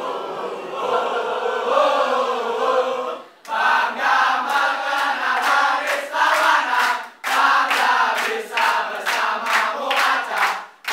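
A group of voices singing or chanting together, with hand claps joining in from about four seconds in. The sound breaks off abruptly twice.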